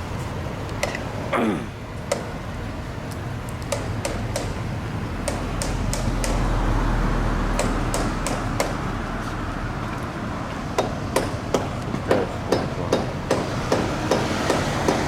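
Repeated hammer blows on a work site, settling into a steady beat of about two strikes a second in the last few seconds, over a low rumble that swells in the middle.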